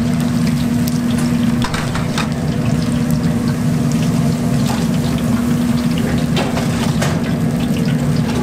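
Snack-bar kitchen noise: a steady mechanical hum under a constant hiss, with scattered light clicks and clatter.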